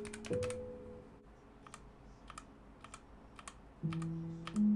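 Key presses on a Womier WK61 60% mechanical keyboard with linear switches and pudding keycaps: a quick cluster of clicks at the start, then single keystrokes every third to half second. Soft background music with held notes plays under them at the start and again near the end.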